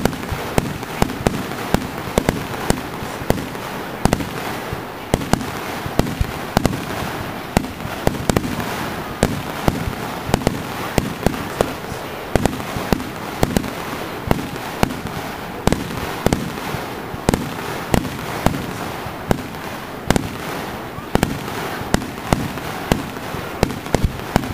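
Fireworks display: aerial shells bursting in quick succession, many sharp bangs several times a second over a steady hiss of noise.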